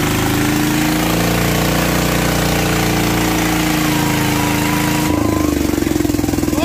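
Kubota RT110 single-cylinder diesel engine, upgraded to 155, running hard while held back by a rope pulled against its pulley, with its pitch wavering slightly. A thin squeal rises about four seconds in and stops a second later.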